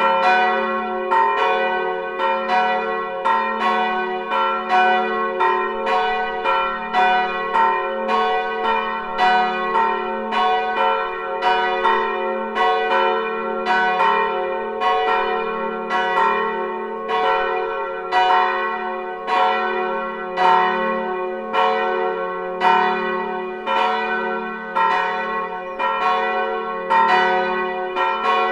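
Several church bells swinging and ringing together in the tower, including bells with strike notes of F-sharp and A-sharp. The strikes come about twice a second in an uneven, overlapping pattern, each leaving a long ringing tail.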